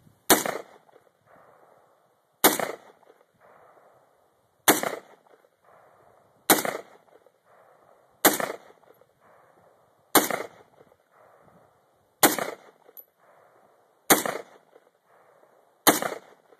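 Bushmaster AR-15 semi-automatic rifle fired nine single shots at a slow, steady pace, about one every two seconds, each sharp crack followed by a fading echo.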